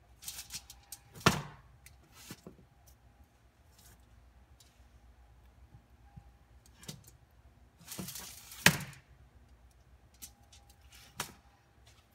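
Freshly baked roast paan loaves being pulled apart and stacked on a foil-lined metal baking sheet: rustling and crinkling of foil and crust, with two sharp knocks, about a second in and again about nine seconds in.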